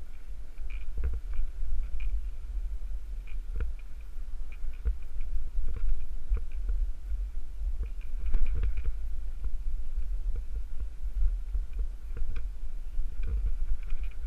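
Wind buffeting the microphone of a snowkiter's head-mounted camera in a steady low rumble. Irregular knocks run through it as the rider bumps over tracked snow, with a cluster of them about eight seconds in.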